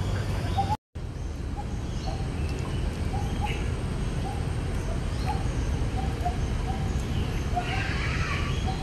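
An animal repeatedly calling a short, slightly rising note, over and over at an uneven pace, over a steady low rumble; the sound cuts out completely for a moment about a second in.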